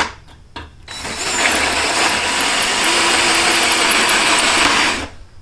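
Cordless drill boring a 7/8-inch hole through quarter-inch metal plate, the bit cutting and squealing faintly in the metal. It starts about a second in, runs steadily, and stops shortly before the end.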